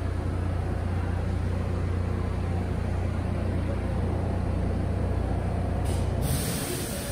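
Low, steady rumble of a New York subway train out of sight in the tunnel. About six seconds in the rumble falls away and a high hiss sounds.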